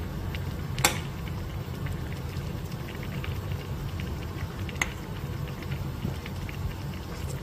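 Pot of doenjang soup simmering, a steady bubbling with many small pops. Two sharp clinks, about a second in and near five seconds, of a metal ladle against the stainless pot.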